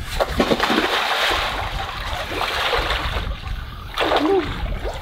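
A person in a wetsuit dropping into the sea: a splash and the water churning for about three seconds, then a short voice sound near the end.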